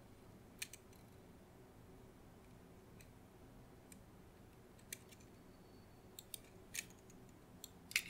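Faint, scattered small clicks and taps of metal tweezers against the plastic mouse shell and a ribbon cable as the cable is worked back into its connector. The clicks come more often near the end.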